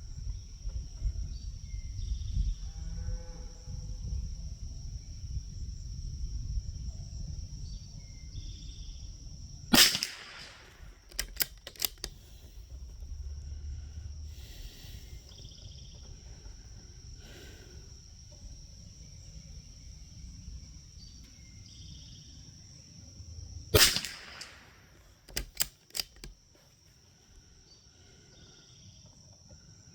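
Two .22 LR rifle shots from a bolt-action Tikka rimfire, about fourteen seconds apart, each followed a second or two later by a few sharp clicks of the bolt being worked. Insects drone with a steady high tone throughout.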